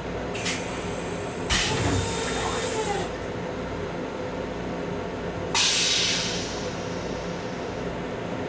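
Steady running noise inside a Long Island Rail Road M7 electric railcar, broken by two loud hissing rushes of air or water. The first starts about a second and a half in, lasts about a second and a half and cuts off sharply; the second starts about halfway through and fades away.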